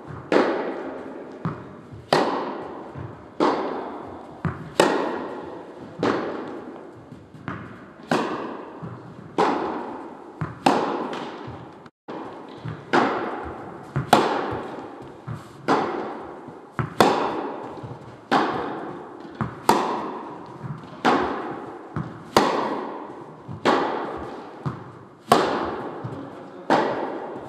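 Tennis rally: a racket strikes the ball about every one and a half seconds, each stroke followed by an echoing decay, with a lighter knock of the ball bouncing shortly before many of the strokes.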